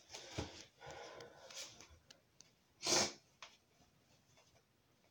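Faint rustling of clothing and handling of the phone for the first two seconds, then one short, sharp sniff about three seconds in.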